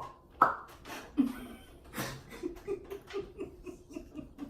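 Soft, stifled chuckling: a few short clicks, then a run of quick breathy pulses, about three or four a second.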